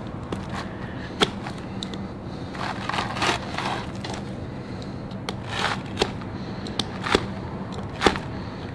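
An Outdoor Edge RazorLite replaceable-blade knife slicing through a rubber snow plow deflector. The cut gives rough scraping strokes with a sharp click now and then.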